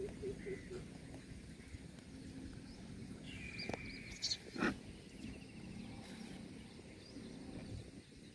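Outdoor ambience around a feeding troop of rhesus macaques: a low rumble with faint animal calls. A quick run of low calls comes at the start, a thin high call about three and a half seconds in, and a sharp click just after it.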